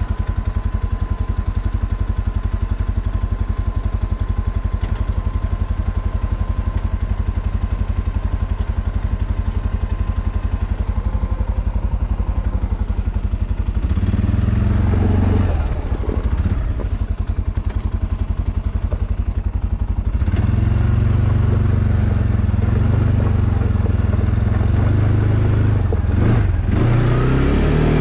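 Arctic Cat Alterra 700 ATV's single-cylinder engine idling with an even pulse. About halfway through it revs up and drops back, and from about two-thirds of the way it runs louder under throttle as the ATV drives off.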